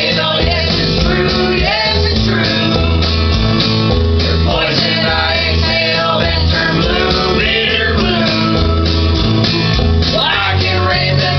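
A song: singing over a guitar backing with a steady, repeating bass line.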